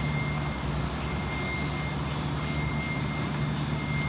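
Steady low machine hum with a thin, constant high whine, and faint light scraping over it as slag dust is cleaned out of a graphite cadweld mold.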